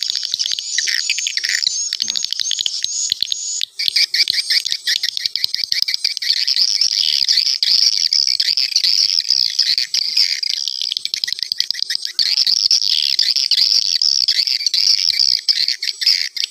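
Swiftlet lure call recording played back through a tweeter speaker: a dense, rapid twittering of chirps and clicks, made up mainly of adult swiftlet calls with faint chick calls mixed in. It breaks off briefly almost four seconds in and then carries on.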